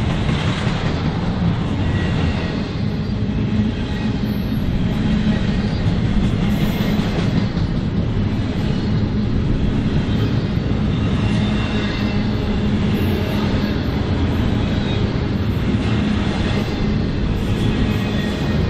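Train rolling past, a steady loud rumble of wheels on rail with some clickety-clack.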